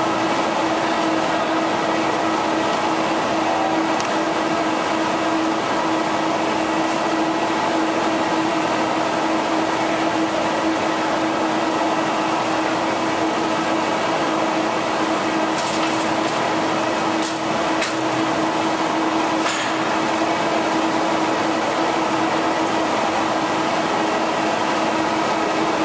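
EFI H652 wide-format flatbed digital printer running: a steady mechanical hum with a constant held tone, and a few sharp clicks about two-thirds of the way through.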